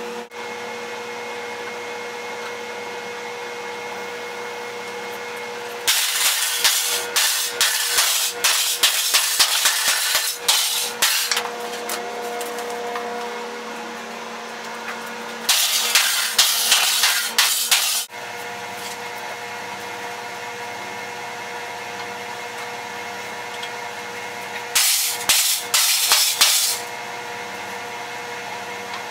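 A steady hum with several fixed tones, broken three times by a few seconds of loud, rapid, irregular crackling and clattering.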